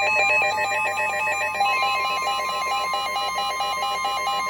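Emergency Alert System alert tones: a fast-repeating electronic beeping warble. A steady high tone joins it about a second and a half in.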